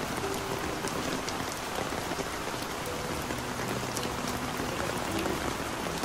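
Heavy rain falling steadily: a dense hiss with scattered sharp ticks of drops striking close by.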